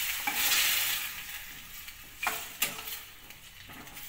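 Yogurt-and-green-chilli-marinated chicken sizzling in hot oil in a steel pan as a steel spoon stirs it, scraping the pan a few times. The sizzle fades over the few seconds.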